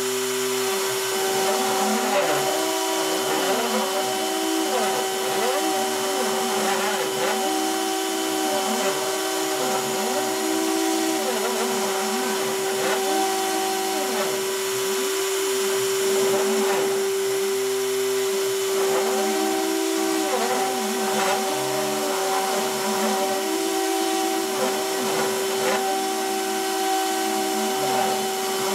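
Hobby CNC router engraving cardboard: the rotary-tool spindle runs at a steady high whine while the bit cuts. The machine's stepper motors sing in pitches that swoop up and down over and over as the gantry traces the letters, with short held notes on the straight moves.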